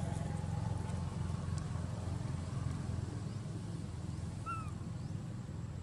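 A steady low engine rumble with an even pulse, like a motor idling. A single short high chirp sounds about four and a half seconds in.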